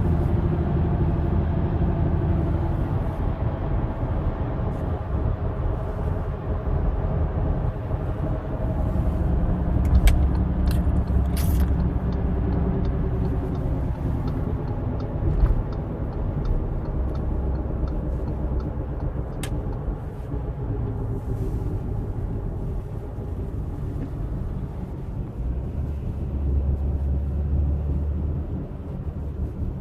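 Audi car driving, with a steady low rumble and a faint hum that drifts slowly in pitch: the noise of a bad wheel bearing. A few light clicks come in around the middle.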